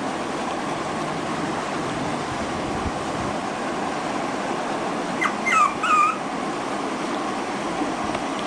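White Pomeranian puppy giving a quick run of a few short, high whimpering yips about five seconds in, over a steady background hiss.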